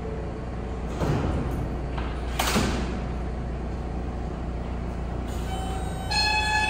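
R160 subway car doors sliding shut, with two thuds and hisses about one and two and a half seconds in. Near the end the train's traction motors begin a whine of several steady tones as it starts to pull out.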